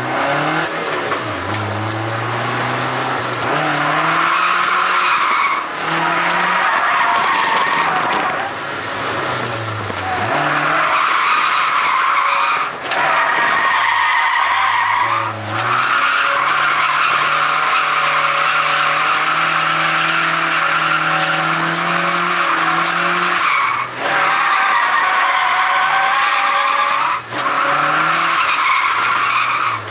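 Nissan 240SX drifting, heard from inside the cabin: the tyres squeal almost without a break while the engine revs rise and fall through the slides. Several times the sound briefly drops away before the squeal and engine pick up again.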